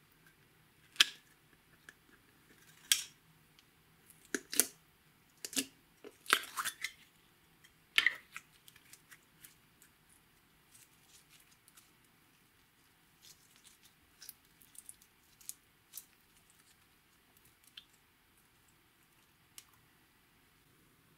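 Slime and its plastic container handled close to the microphone: sharp, sticky clicks and pops, loud and frequent in the first eight seconds, then fainter and sparser crackles as the slime is stretched and folded.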